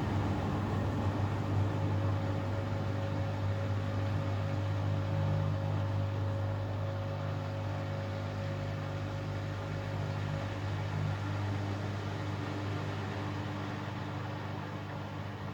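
Hoover Axi 9kg washing machine running, a steady motor hum with a faint hiss, easing slightly in level towards the end.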